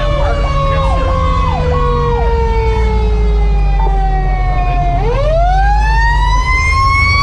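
Fire engine siren winding slowly down in pitch, then spinning back up to a higher wail about five seconds in, with a few quick yelps over it in the first couple of seconds. A steady low engine and road rumble from the moving fire truck runs beneath.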